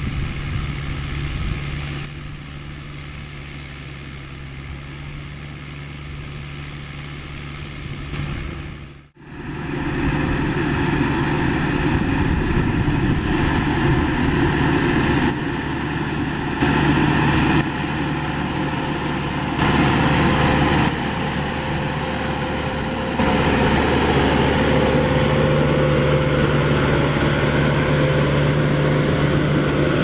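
Massey Ferguson 4299 tractor's diesel engine running steadily under load as it pulls a 56-disc offset disc harrow through the soil. The sound fades almost to nothing about nine seconds in, then comes back louder, with sudden small jumps in loudness later on.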